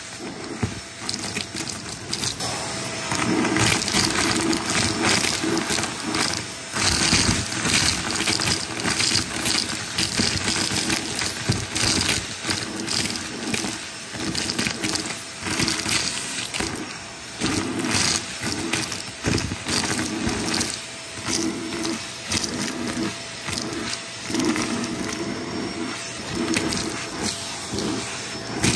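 Vacuum cleaner sucking confetti, sequins and balloon scraps off a shag rug through a wand nozzle: a steady rush of air over the motor's hum, broken by frequent rattles and clicks of debris being pulled up the tube.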